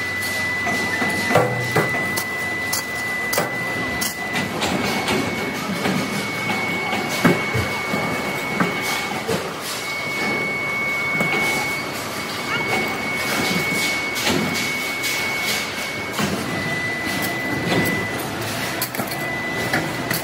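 Heavy factory machinery running with a steady high whine that shifts slightly in pitch a couple of times. Frequent metallic knocks and clicks sound over it, a sharp one about seven seconds in.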